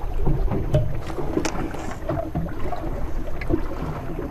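Wind buffeting the microphone and water moving against a small boat's hull, with a few light knocks and taps.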